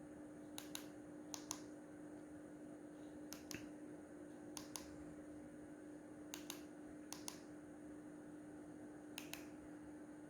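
BenQ W2700 (HT3550) DLP projector giving off a faint steady low buzz, with sharp double clicks recurring every second or two. The owner places the buzz just right of the BenQ logo on the front and says it is not the cooling fan.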